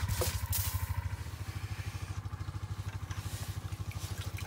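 Small engine idling with an even, low, rapid throb. About half a second in, a brief scrape of a snow shovel pushing snow.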